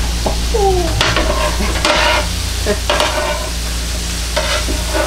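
Metal spatulas scraping and turning sliced onions and peppers on the hot plate of a Blackstone E-Series electric tabletop griddle, with a steady sizzle of frying underneath. Sharp scrapes come about once a second.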